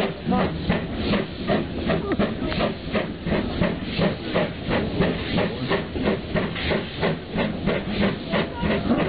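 Steam locomotive chuffing in a steady rhythm of about three puffs a second, with hissing steam. Faint voices murmur underneath.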